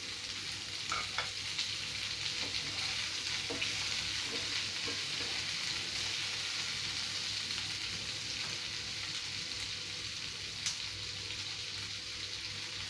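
Chopped onions and tomatoes sizzling in hot oil in a kadhai, a steady frying hiss. A spatula stirring them gives a few small clicks and scrapes against the pan.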